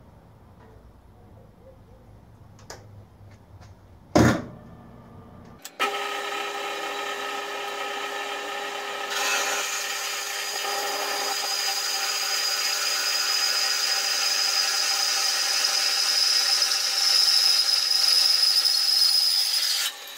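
Horizontal metal-cutting bandsaw cutting through steel angle iron. A sharp knock about four seconds in, then the blade bites into the metal and cuts steadily with a ringing whine that grows louder toward the end, stopping abruptly just before the end.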